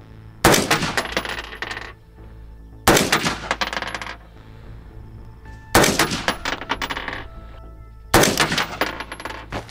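Four rifle shots from an AR-15 with a 16-inch barrel firing 5.56 mm, spaced about two and a half seconds apart, each followed by a long echoing tail.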